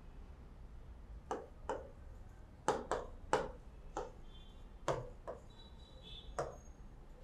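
Chalk tapping and scraping on a blackboard while writing: about nine sharp, irregular taps over several seconds, with a faint brief high squeak between some of them.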